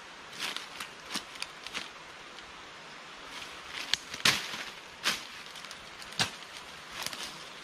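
Dry leaf litter and undergrowth rustling and crackling as a person crouches and handles forest plants at ground level, with a scatter of sharp cracks, the loudest about four seconds in.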